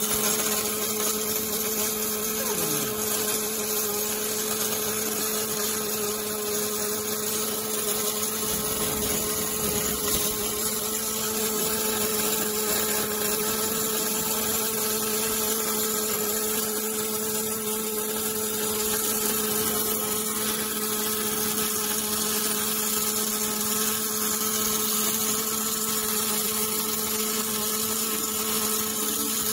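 MIG/MAG welding arc from an automatic pulley circular-seam welding machine, a steady hiss and crackle as the wire-fed torch welds the inner circular seam, with a steady hum underneath.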